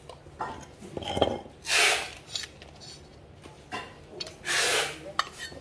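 Aluminium machine parts being handled and moved on a hard surface: a few short scrapes with light knocks.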